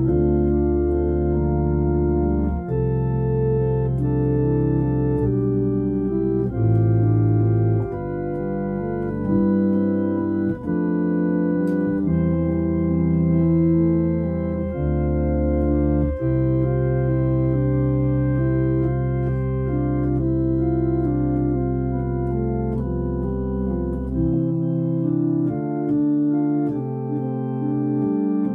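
Organ playing slow, sustained chords over deep bass notes. The bass drops out for a moment about ten seconds in and again near the end.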